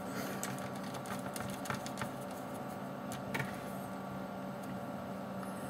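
Small magnetic screwdriver driving the heat sink screws down onto a laptop motherboard's processor: a few faint ticks of metal on metal, over a steady low hum.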